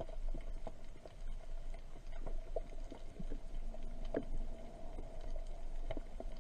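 Underwater sound picked up by a diver's camera: a low steady rumble and a faint steady hum, with scattered sharp clicks and crackles.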